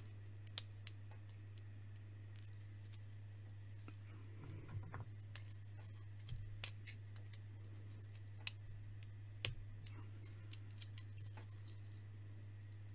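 Small plastic building bricks clicking and tapping as they are handled and pressed together: scattered sharp clicks, the loudest a little past the middle, over a steady low hum.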